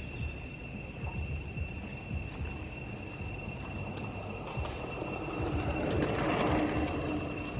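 Steady high-pitched insect trill over a low rumble. From about five seconds in, a louder rushing noise with a low hum swells up and peaks near the end.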